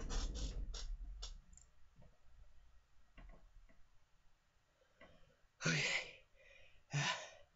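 Rustling and a few small clicks, then two harsh breaths or coughs from a person, about a second and a half apart.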